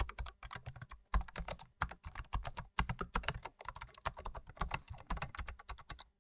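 Fast continuous typing on a computer keyboard: many keystrokes a second, each a sharp click with a dull low thud beneath, broken by a few short pauses.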